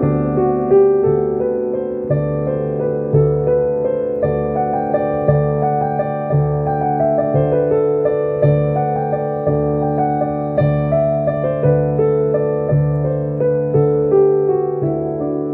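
Piano music: sustained chords shifting over a low note that returns about once a second.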